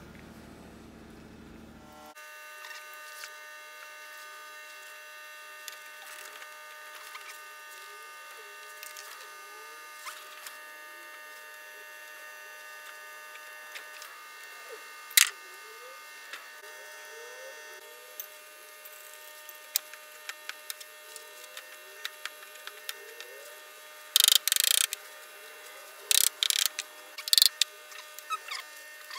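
Metal clicks and knocks of a screwdriver and the motor's metal end housing as an old electric motor is reassembled. There is a sharp knock about fifteen seconds in and a cluster of loud knocks near the end, over a faint steady hum.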